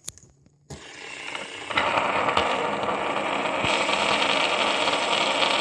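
Fidget spinners whirring on a hard tabletop: a steady mechanical whir that starts a little under a second in and grows louder about two seconds in.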